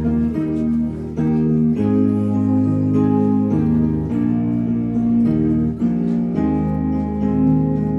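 Instrumental music, guitar-like plucked strings playing held chords over a changing bass line.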